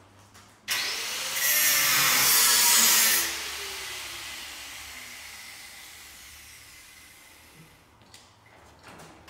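Angle grinder starting up and cutting into car-body sheet metal, loudest for about two seconds, then fading slowly over several seconds as the disc winds down.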